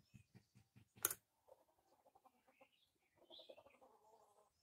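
Faint quick low taps, one sharp click about a second in, then a bird calling faintly for the last few seconds.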